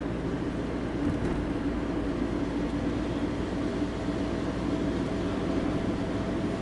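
Steady vehicle noise of a car on the road, engine and tyre noise with a constant low hum throughout.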